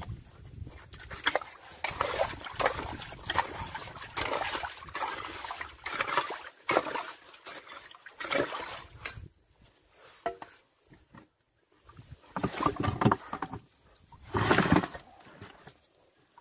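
Metal digging bar working in waterlogged sand and mud, with wet squelches and splashes, then hands scooping through the mud. The noises come in irregular bursts, with a lull of a few seconds about nine seconds in.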